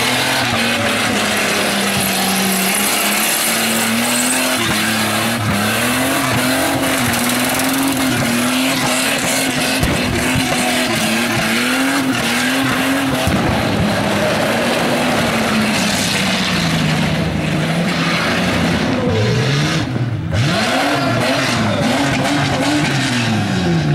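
Holden VR Commodore's 3.8-litre Buick V6 held at high revs in a burnout over the steady hiss and squeal of the spinning rear tyres, the revs rising and falling about once a second. In the last few seconds the revs drop, then are blipped up and down several times.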